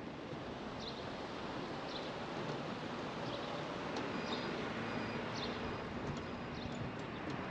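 Steady running noise of a car driving, with a few short bird chirps spaced about a second apart over it.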